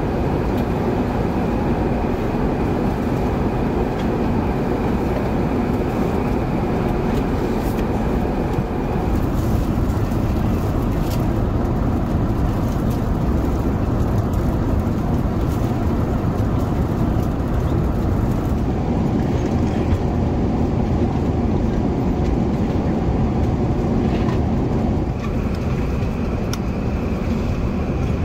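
Steady in-flight cabin noise of an Airbus A380 in cruise: an even rush of airflow and engine noise with a faint high whine.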